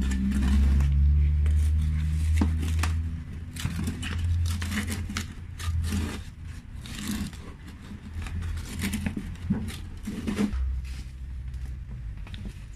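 Plastic hand trowel scraping and prodding around the inside wall of a plastic flower pot, loosening compacted potting soil in a run of short, irregular scrapes and clicks. A low rumble underneath is loudest in the first few seconds.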